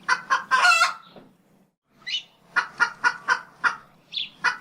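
A chicken clucking: a quick run of short clucks, a brief pause, then another run of clucks at about four a second.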